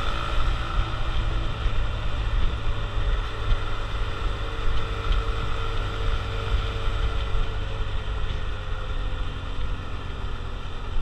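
Honda CT125 Trail/Hunter Cub's 125 cc air-cooled single-cylinder four-stroke engine running at a steady pace while riding, with road and wind noise on the handlebar-mounted camera's microphone.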